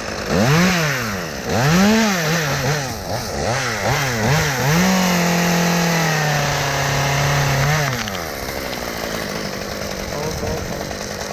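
Gas chainsaw revved in several quick bursts, then held at full throttle for about three seconds while cutting through a rigged limb, then dropping back to idle.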